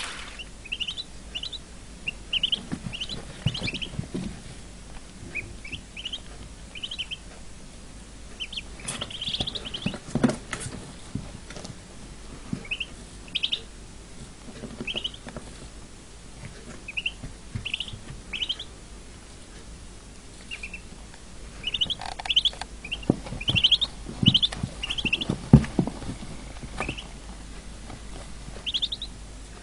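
A brood of ducklings peeping: short, high, upward-sliding cheeps coming in scattered clusters, with a few soft knocks among them.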